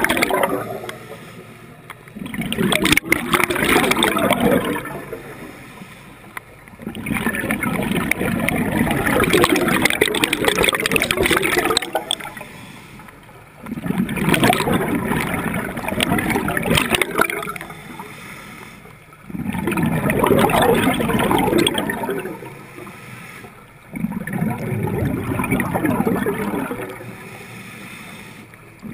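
Scuba diver breathing underwater through a regulator. Exhaled bubbles gurgle and rumble in five long bursts about every five to six seconds, with quieter gaps between breaths.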